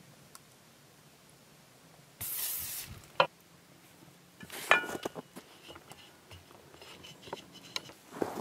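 A short hiss of an aerosol olive-oil cooking spray, under a second long, followed by a sharp click. About two seconds later metal kitchenware clatters with a brief ring, then small handling sounds of dough being worked.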